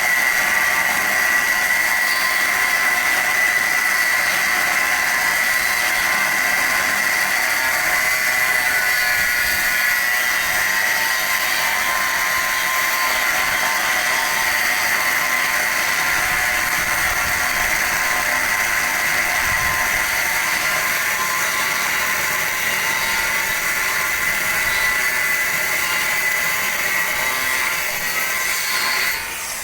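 Abrasive cut-off disc cutting through steel channel: a loud, steady high-pitched whine over a hissing grind, which drops away near the end.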